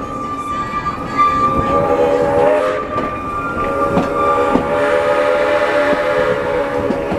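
Steam locomotive's whistle sounding in long blasts for a grade crossing, with a short break between them, over the clicking of the coach wheels on the rail joints.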